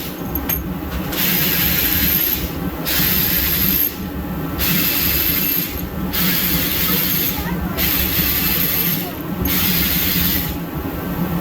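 Cordless battery ratchet running in repeated bursts of about a second each, with short pauses between, as bolts are spun out of an engine block. A steady low hum runs underneath.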